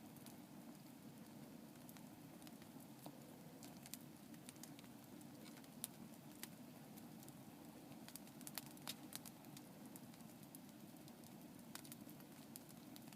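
Campfire crackling: irregular sharp pops and snaps, a quick cluster of louder ones about eight to nine seconds in, over a faint steady low rush.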